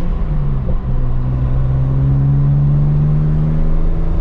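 BMW N54 twin-turbo straight-six in a 335i running on the road: its revs drop through a gear change in the first second, then climb slowly as the car pulls in the next gear. It runs smoothly, its misfire cured by new index 12 injectors, coil packs and spark plugs.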